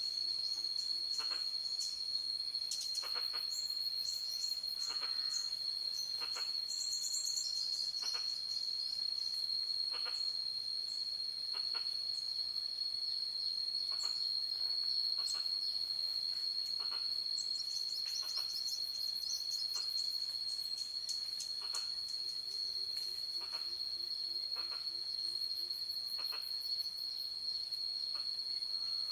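Night insects, crickets, trilling at one steady high pitch, over short sharp clicks about once a second. Twice there is a flurry of higher chirping calls, and a low pulsing call comes in near the start and again about three-quarters of the way through.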